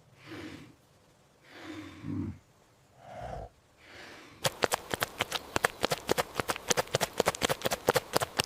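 A few soft, breathy snorts from an animal, then from about halfway a quick, irregular run of sharp clicks or taps.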